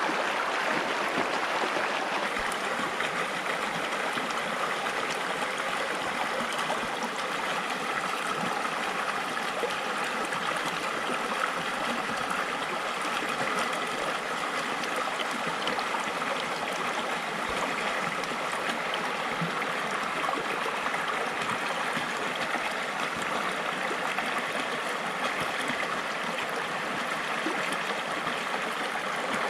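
River water flowing steadily, an even rushing and gurgling with no breaks.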